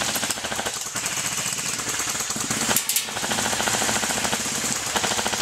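Airsoft guns firing on full auto: a rapid, continuous rattle in long bursts, broken briefly about a second in and again near three seconds in.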